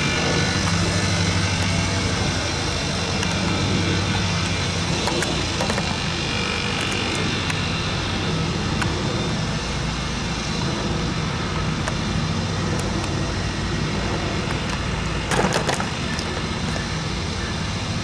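CSX ES44AC-H diesel-electric locomotives with GE GEVO-12 engines running slowly past at the head of an intermodal stack train: a steady engine drone, with a short clatter of sharp clicks about fifteen seconds in.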